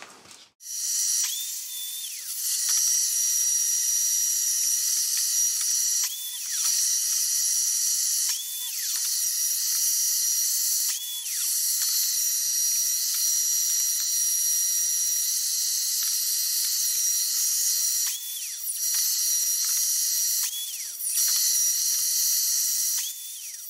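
DeWalt sliding compound miter saw making a series of cuts through bundles of heat-treated sauna paneling. The motor whine rises and falls about seven times over a steady hiss.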